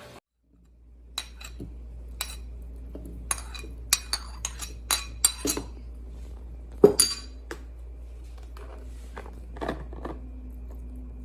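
Utensils clinking and tapping against dishes, about a dozen irregular clinks, the loudest about seven seconds in, over a steady low hum.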